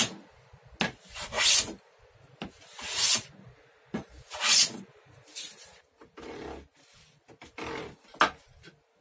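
Hand saw cutting a kerf into a wooden saw-handle blank for the saw plate. It makes slow, uneven back-and-forth strokes, each a rasping hiss with short pauses between.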